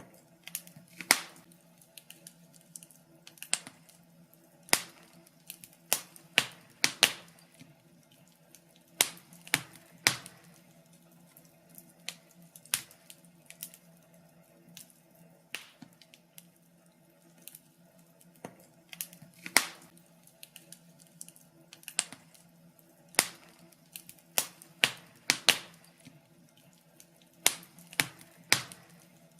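Wood fire in a fireplace crackling, with irregular sharp pops and snaps at uneven intervals over a faint steady hum.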